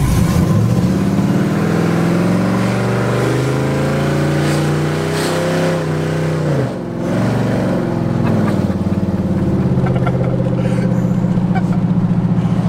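Cammed 5.3-litre V8 of a Chevy Silverado running loud on open headers with no exhaust fitted, heard from inside the cab. The engine note climbs as the truck accelerates, drops sharply about seven seconds in, then climbs again and holds steady with an even, choppy pulse.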